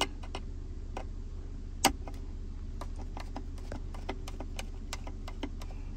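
Phillips screwdriver backing out the screws of a MagSafe charger base in a car's centre console: a run of small, quick clicks, with one sharper click about two seconds in, over a low steady hum.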